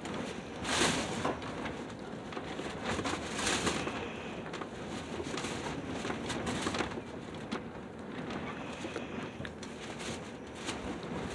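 Close mouth sounds of someone eating a popsicle: licking and sucking on the frozen treat, with noisy swells about a second in, around three and a half seconds and around six seconds, then small wet lip and tongue clicks near the end.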